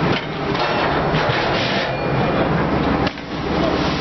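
Enclosed freefall lifeboat launched from a ship's ramp: a rubbing, rattling noise as it slides down the skids, changing abruptly about three seconds in as it leaves the ramp for the sea.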